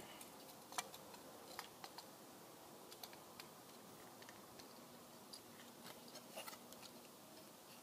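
Faint, scattered clicks and ticks of plastic parts as a snap-together model airliner's wing is worked into its slot in the fuselage by hand.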